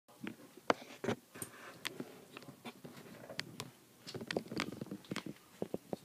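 A parrot playing with a hanging wooden toy: irregular sharp clicks and knocks of its beak against the wood and toy parts, with light rattling in between.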